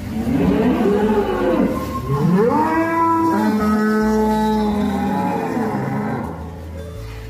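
Cattle mooing: a few short bending calls, then one long drawn-out moo lasting about four seconds that fades near the end.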